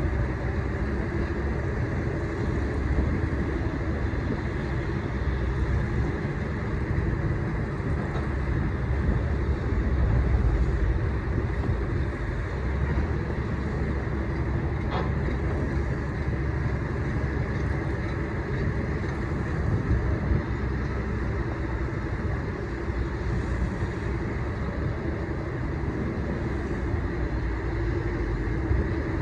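A cargo boat's engine running steadily with a low, even rumble.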